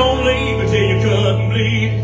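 A man singing to his own strummed acoustic guitar, heard through a microphone.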